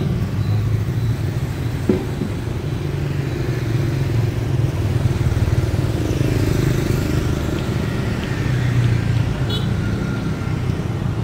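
Motor scooters passing on the street: a steady low rumble of engines and tyres, with one rising-and-falling pass midway.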